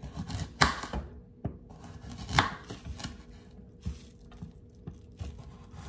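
Kitchen knife slicing a raw carrot diagonally on a cutting board: a run of irregular knocks as the blade cuts through and hits the board, loudest about half a second in and again near two and a half seconds.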